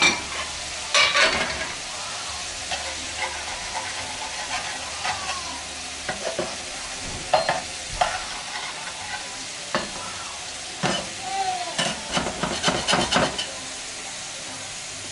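Steak patties sizzling steadily as they fry in hot oil in a skillet. Sharp clinks and scrapes of a metal spatula against the pans come now and then, most often in a cluster near the end.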